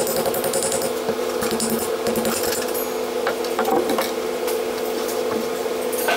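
Flakes of rust scale from a long-buried axe head crackling and clicking as a hand moves through the pile, over a steady hum.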